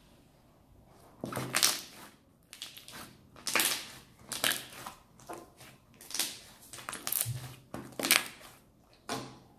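A large batch of slime being squeezed, stretched and folded by hand, giving a series of short squelches about one every half second to a second, starting about a second in.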